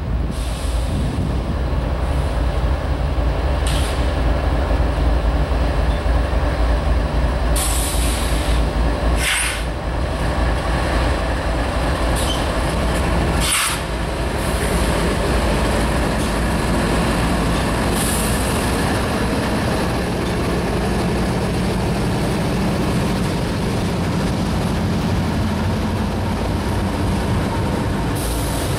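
Diesel locomotives of a CSX freight train, GE Evolution-series units in the lead, approaching and passing close under power: a steady low engine drone with the rumble of wheels on rail. Several short, high hissing bursts come through in the first half.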